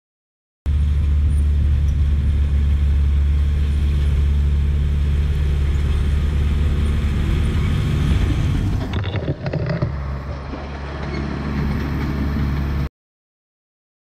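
1988 Caterpillar D4C bulldozer's diesel engine running steadily under load as its blade pushes a pile of shale. About nine seconds in the engine note drops amid a clatter of tracks and rock, and it runs on lower as the dozer backs away.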